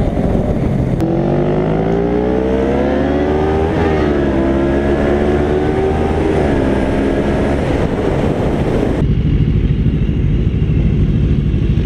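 Sport motorcycle engine accelerating hard, its pitch climbing and then dropping sharply twice as it shifts up through the gears. About nine seconds in, the sound cuts abruptly to a low, steady rumble.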